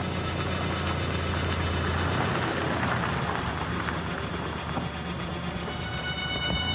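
An old sedan drives past over leaf-covered dirt, its engine and tyre rush swelling to a peak about two to three seconds in and then easing, over a steady low hum.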